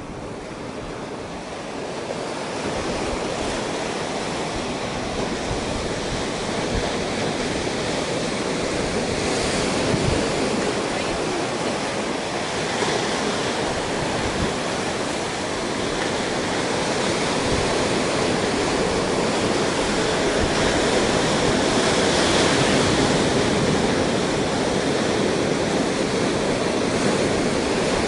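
Small ocean waves breaking and washing up over a rocky beach: a steady rush of surf and foam that swells with each incoming wave and is loudest about two-thirds of the way through.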